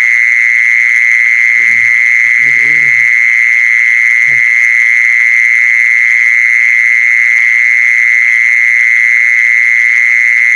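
A loud, steady, high-pitched buzzing trill from a calling animal, held without a break. A few faint low murmurs come in briefly in the first half.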